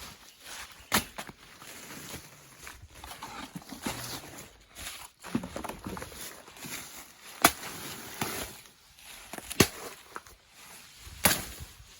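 Footsteps and rustling through dry vegetation on a plantain farm, with four sharp knocks spread through it, one about a second in and three in the second half.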